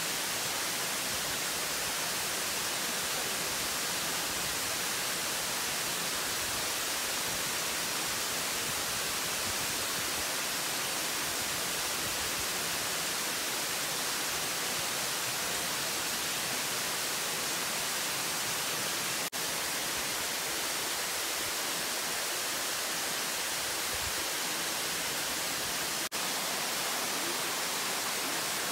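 Steady rush of a waterfall cascading over rocks, a constant hiss of falling water, broken by two very short dropouts about 19 and 26 seconds in.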